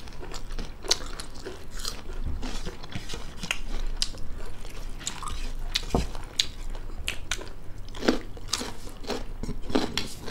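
People chewing and crunching food close to the microphone, eating by hand, with many short, irregular crisp crunches.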